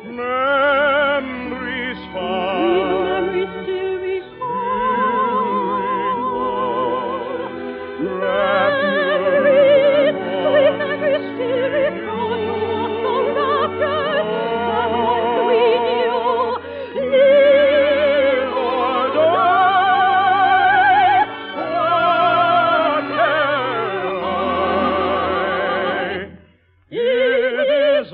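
Operetta singing: an operatic voice with wide vibrato sustaining long notes over orchestral accompaniment, on a muffled old broadcast recording. The music breaks off briefly near the end, then resumes.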